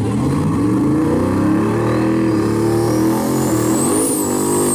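Drag-racing pickup truck's engine running loudly at the starting line, its revs rising and falling as it is blipped. In the second half a thin high whistle climbs in pitch over the engine.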